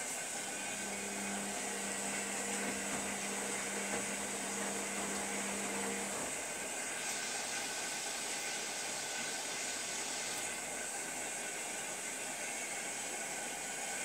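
Zanussi Lindo300 front-loading washing machine in its rinse cycle: a steady rushing hiss of water, with a low hum that stops about six seconds in.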